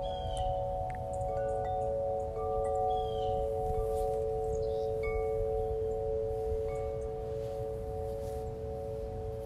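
Ambient background music of long, steady chime-like tones held over one another, with short higher notes coming in and out and a few brief falling chirps.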